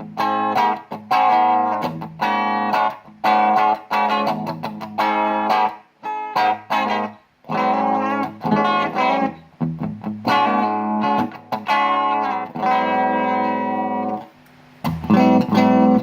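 Electric guitar played through a small Vox amp: strummed and picked chords with some distortion, each let ring, with short breaks between phrases. The amp is picked up by the camera's own microphone, not mic'd, and the top string is a bit buzzy.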